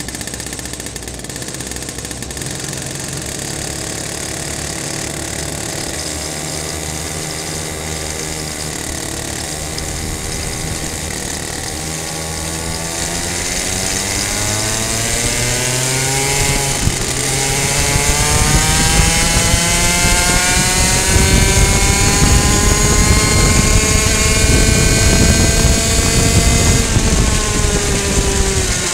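Two-stroke racing kart engine idling, then revving up as the kart pulls away about halfway through. Its pitch rises steadily for several seconds to a high, steady note at full speed, then falls slightly near the end as the kart brakes.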